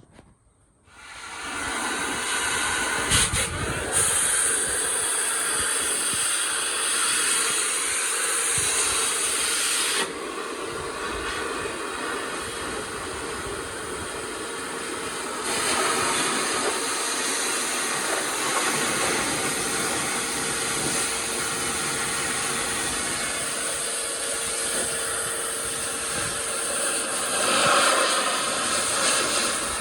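Metal-cutting torch hissing steadily as it cuts the steel side boxes out of a pickup bed, starting about a second in; the hiss steps up and down in strength a few times as the cut goes on.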